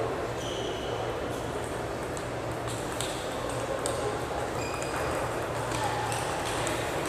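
Table tennis ball clicking off the bats and table in a rally starting about three seconds in, roughly one hit a second, over a murmur of voices and a steady low hum.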